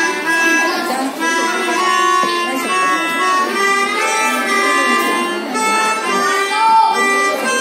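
Pianikas (melodicas, keyboard-blown free-reed instruments) played by a group of students, carrying a simple tune in steady, held notes that change a few times a second.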